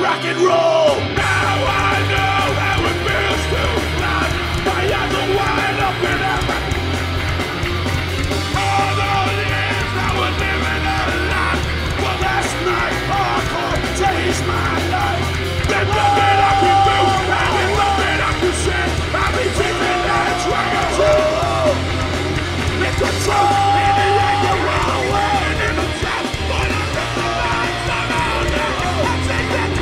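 Live hardcore punk band playing loud, with distorted guitars, bass and drums under shouted vocals. The low end briefly drops out at the very start, then the band comes back in full.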